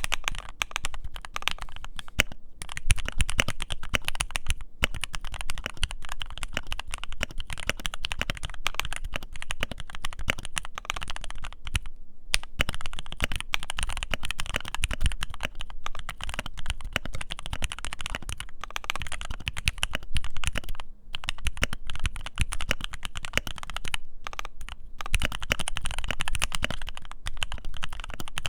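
Continuous typing on a Keychron Q3 mechanical keyboard with filmed and lubed Gateron Milky Yellow linear switches: a dense stream of keystroke clicks, with a few short pauses.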